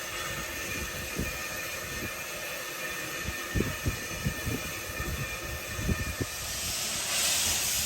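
Narrow-gauge steam train running, with irregular low knocks, and a loud hiss of steam rising about six and a half seconds in.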